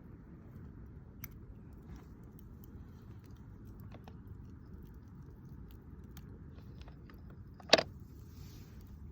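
Campfire crackling: scattered faint ticks of burning wood and one loud sharp pop near the end, over a steady low rumble.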